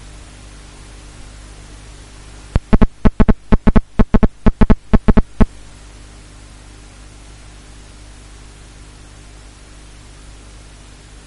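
Steady hiss with a low hum. About two and a half seconds in it is broken by a quick, uneven run of about fifteen loud thumps lasting some three seconds.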